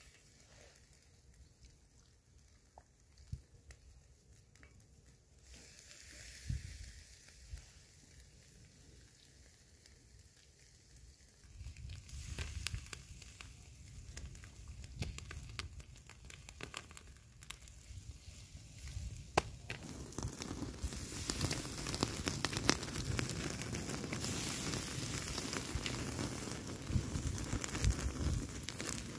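Fire crackling and sizzling: a few scattered pops at first, denser crackles from about twelve seconds in, then a steady sizzle full of pops that grows louder over the second half.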